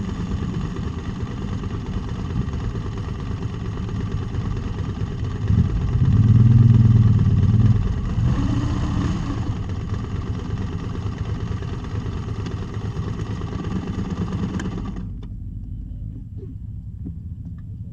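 Motorcycle engine running steadily at idle. About six seconds in, a nearby motorcycle gets louder as it pulls away, its pitch bending. The steady engine sound stops abruptly about fifteen seconds in.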